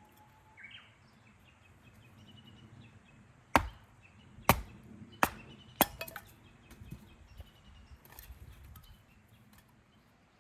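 Wood being chopped: four sharp strikes about two-thirds of a second apart, then a few lighter knocks. Birds chirp faintly in the background.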